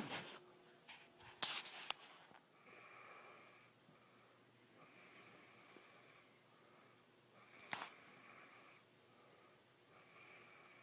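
Faint snoring: a soft, wheezy breath about every two and a half seconds. A few sharp clicks or knocks come in the first two seconds, and another near the eighth second.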